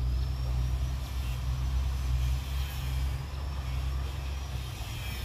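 Heavy diesel engines running at a steady low rumble, with a faint high whine wavering above it.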